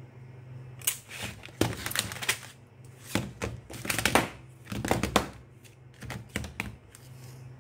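Hard plastic laptop battery packs clattering and knocking against each other and the work surface as they are picked up and shuffled by hand: an uneven run of clacks and rattles that stops shortly before the end.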